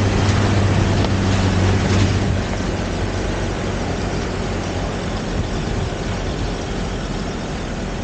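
Land Rover Defender engine running as it drives through a rocky stream, over the rush of water and wind noise on the microphone. The steady engine hum fades out about two seconds in, leaving the rush of water and wind.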